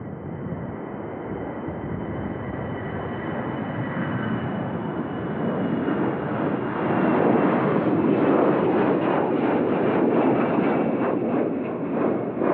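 Xian Y-20 military transport's four turbofan engines at takeoff power as it climbs out just after lift-off. The engine noise swells, is loudest from about seven seconds in, and carries a thin high whine that slides slightly lower. It turns crackly in the last few seconds as the aircraft passes.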